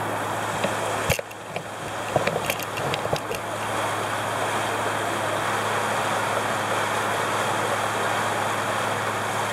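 Sightseeing cruise boat under way: a steady low engine hum beneath the rush of wind and water over the open deck, with a few sharp knocks and clicks in the first few seconds.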